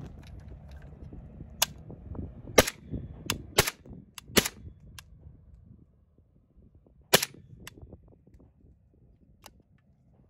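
Suppressed gunshots from a 5.56 AK-pattern rifle fitted with a Dead Air Wolfman suppressor with its 9mm front cap: a quick run of sharp shots in the first half, one more about seven seconds in, and fainter cracks in between and after.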